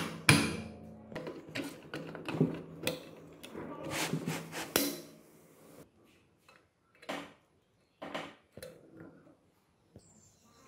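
Metal engine parts clinking and knocking against an aluminium crankcase as a shaft and its spring are fitted by hand: a dense run of clicks and taps for about five seconds, then a few scattered taps.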